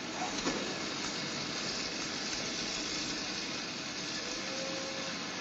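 Steady hiss of assembly-line background noise, with a brief steady whine about four seconds in.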